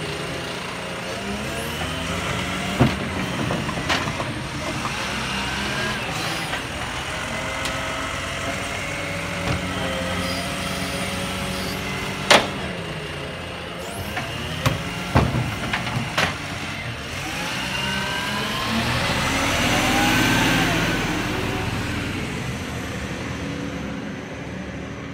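Mercedes-Benz side-loading garbage truck working a bin pickup: the diesel engine running under the whine of the hydraulic lifting arm, which rises and falls in pitch, with several sharp knocks of the bin against the arm and hopper. Later the engine revs up as the truck pulls away, then fades.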